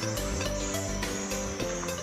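Background music with steady held notes, and faint high chirping over it.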